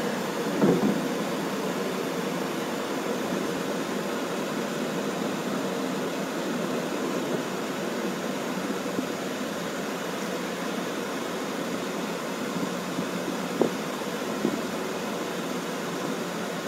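Steady road and engine noise heard inside a car's cabin while it drives along a freeway, with a few brief knocks about a second in and twice near the end.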